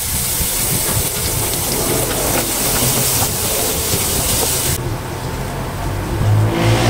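Minced garlic sizzling in hot oil in a nonstick wok while a wooden spatula stirs it, a steady hiss whose highest part drops away about five seconds in. A low hum comes in near the end.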